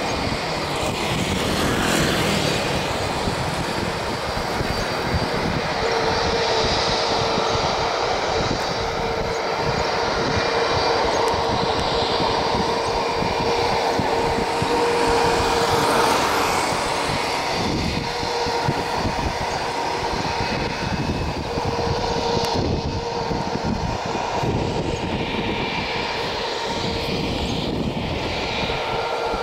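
Airbus A320's twin jet engines running: a loud, steady roar with a high whine over it, swelling slightly around the middle.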